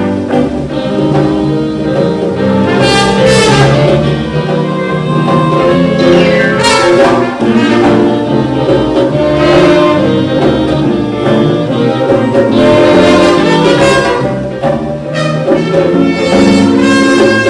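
Jazz big band playing a swing number, with the horn section carrying the tune over a steady rhythm section.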